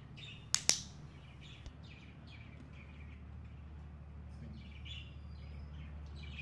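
A dog-training clicker gives one quick double click, press and release, about half a second in, marking the moment the dog lies down. Birds chirp on and off throughout over a faint steady low hum.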